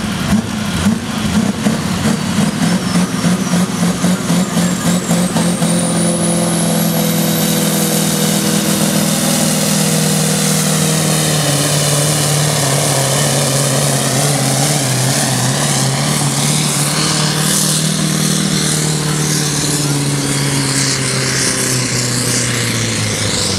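Massey Ferguson 1155 pulling tractor's diesel engine running flat out under load as it drags the pulling sled, throwing black smoke. A high whine climbs steadily in pitch over the first several seconds, and the engine note dips slightly as the tractor passes and pulls away.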